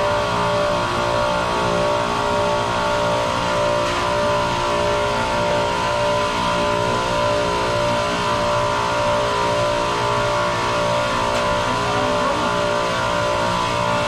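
Steady mechanical drone of running chiller plant machinery, a constant hum made of many tones, with a couple of faint metallic clicks from a wrench on a pipe fitting.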